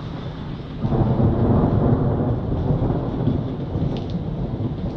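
Rolling thunder: a low rumble that swells suddenly about a second in, then slowly dies away.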